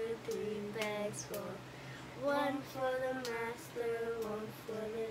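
A child and a woman singing a simple children's tune in short, held notes.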